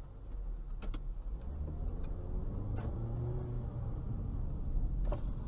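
Engine and road noise of a car heard through its dashcam: a steady low rumble, with the engine note rising as the car speeds up about a second and a half in. A few short sharp clicks come through over it.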